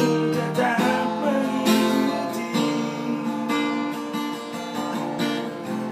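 Acoustic guitar strummed, its chords ringing on between strokes about a second apart.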